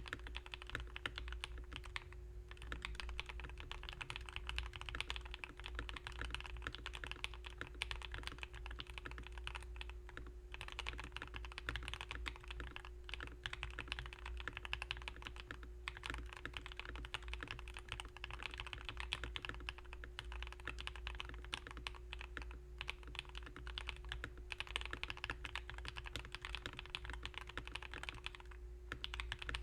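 Continuous fast typing on a Rakk Ilis mechanical keyboard fitted with lubed Akko CS Vintage White linear switches, a dense run of keystrokes broken by a few short pauses. A steady low hum sits underneath.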